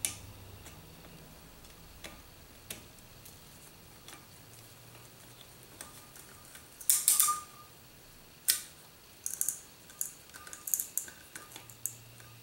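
Screwdriver turning a small brass screw into the top of a chrome bidet diverter knob: scattered metal clicks and taps, a louder clatter about seven seconds in, then a run of quick clicks.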